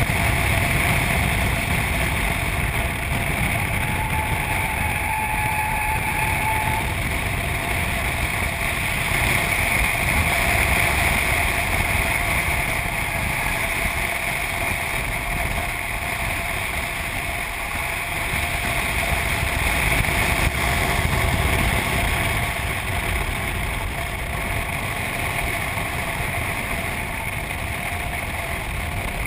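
A Subaru being driven at road speed: steady engine, tyre and wind noise, heard from a camera mounted outside the car by the door mirror, swelling a little now and then.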